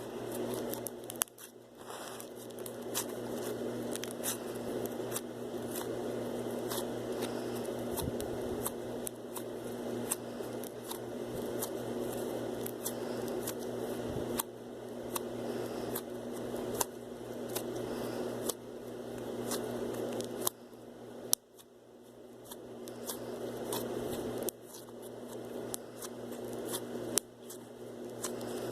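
Slime being squeezed and worked by hand, with a continuous squelching rustle and many sharp clicks and pops of trapped air, over a steady low hum.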